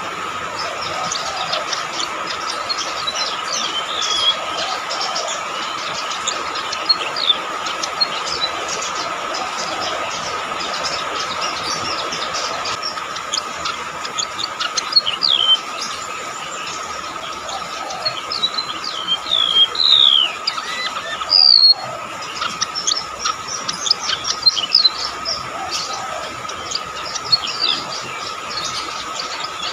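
Golden-bellied gerygone (rametuk laut) singing: a run of high, thin, shrill chirps and short falling whistles, over a steady high hum.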